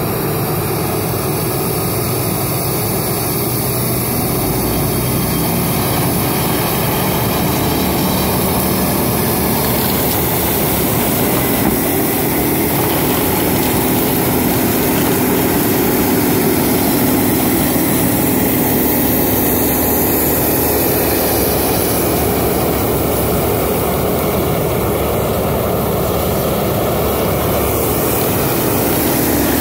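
Tracked forestry mulcher running, its diesel engine under steady load while the front rotor drum shreds saplings and reeds: a loud, continuous mechanical drone that grows a little louder near the end.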